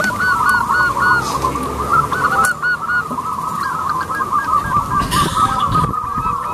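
Zebra doves (perkutut) cooing: a dense, continuous run of short rising-and-falling notes that overlap one another, with a brief hiss about five seconds in.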